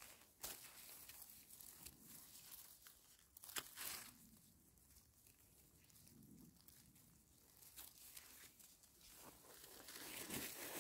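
Near silence broken by faint rustling and crackling of forest-floor litter, with a few sharper snaps about half a second in and again around four seconds in.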